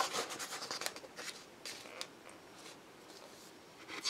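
Paper pages of a thick book being turned and handled: a quick run of rustles and flicks in the first two seconds, then a few fainter ones.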